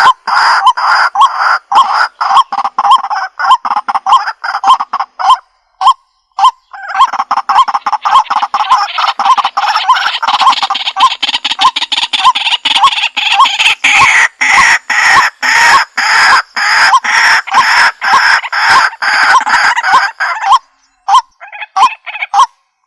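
White-breasted waterhens calling: short, loud 'kwak' notes repeated about three times a second. Through the middle they thicken into a dense overlapping chorus, and they thin to a few spaced calls near the end.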